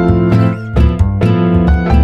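Background music: plucked notes, harp- or guitar-like, over a steady low bass pulse.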